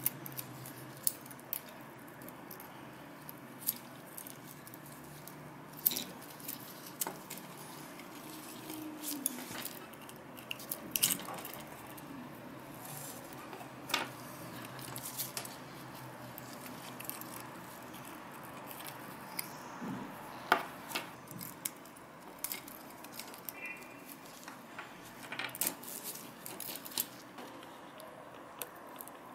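Irregular small clicks and taps of plastic parts and thin metal tools as a Canon PowerShot A490 digital camera is taken apart by hand, with tweezers and a screwdriver, over a faint steady background hiss.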